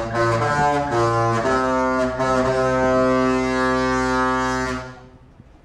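Disney Fantasy cruise ship's horns playing a Disney tune: a few short notes, then a long held note that stops about five seconds in.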